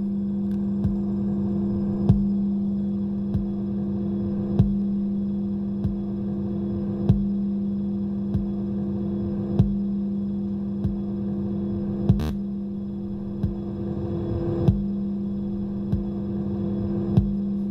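Electronic sound from an interactive sound installation: a steady low hum of several held tones with a short pulse about every second and a quarter, every other pulse stronger, and one sharper click about two-thirds of the way through.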